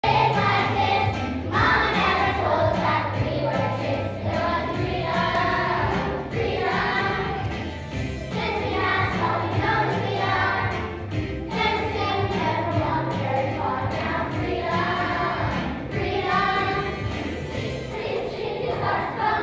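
A group of young children singing a song together over an instrumental accompaniment with a steady bass line beneath the voices.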